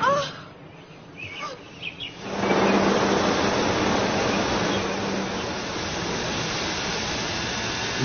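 Vacuum cleaner running in reverse as a blower: a steady rush of air with a low motor hum, starting about two seconds in. The hum drops out about halfway through while the rush of air carries on.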